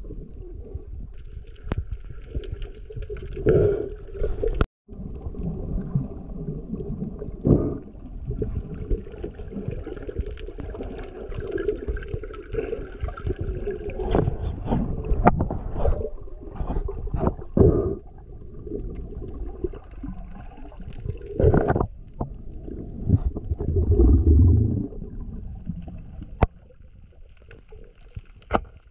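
Muffled underwater sound: water rushing and gurgling, with irregular knocks and thumps.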